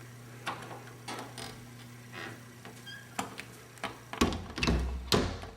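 Scattered clicks and knocks over a steady low hum, with two louder thumps about four and five seconds in.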